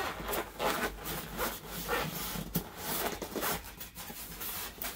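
Styrofoam (expanded polystyrene) packing shell being pried apart by hand, foam rubbing and scraping against foam in a run of short strokes that thin out near the end.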